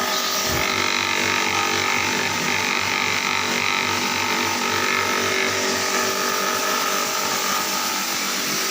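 Steady electric machine hum with a hiss and a low throb pulsing about four times a second; the throb fades out about halfway through.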